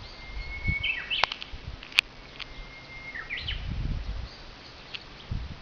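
A bird singing two phrases. Each is a long, steady whistle that breaks into a quick, higher flourish. There are two sharp clicks and some low rumbles around the song.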